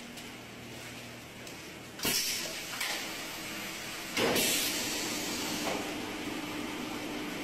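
Stainless-steel filling machine: two sudden sharp hisses about two seconds apart as its valve works during filling, the second the louder, followed by a steady low hum.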